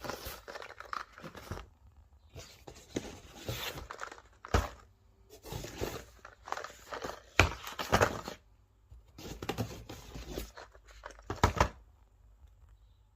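Packaging of a box of Nespresso capsules being handled: cardboard and wrapping crinkling and tearing in irregular bursts, with a few sharp knocks, the loudest of them about 7 to 8 seconds in and again near 11.5 seconds, then it stops.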